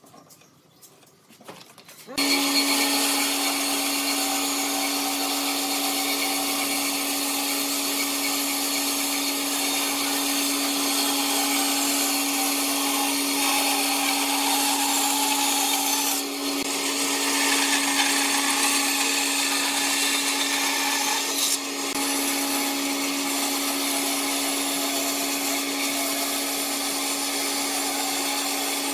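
Band saw running with a steady hum, its blade cutting lengthwise through a wooden board along a marked curve. It starts abruptly about two seconds in and dips briefly twice as the feed eases.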